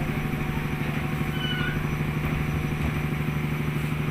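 Fishing boat's engine running steadily, a low even hum with a fast throb, and a brief faint squeak about a second and a half in.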